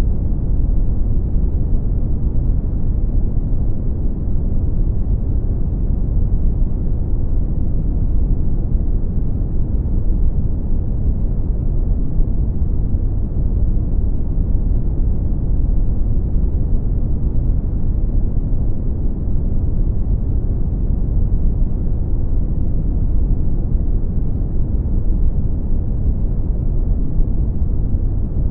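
Brown noise: a steady, deep rumbling hiss with its weight in the low end and little treble, unchanging throughout.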